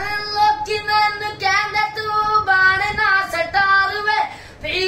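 A boy singing long, held notes in a high voice, with a short break for breath about four seconds in.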